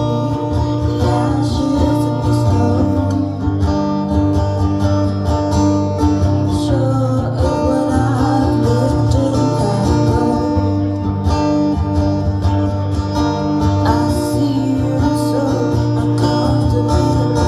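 Live acoustic guitar music, strummed steadily with a sustained bass line.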